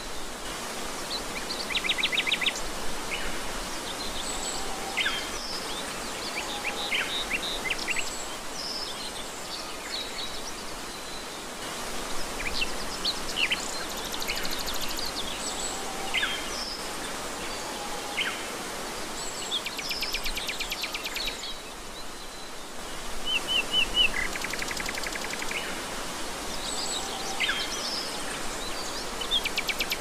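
Steady rush of flowing water with many birds calling over it: short chirps and whistles throughout, and several rapid trills.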